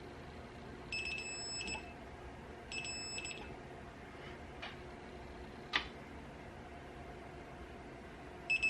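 Digital torque wrench beeping in a high tone as a main stud is tightened: a beep about a second in, a longer one around three seconds, and another near the end, the warning that the set torque is close. A couple of sharp ticks come in between.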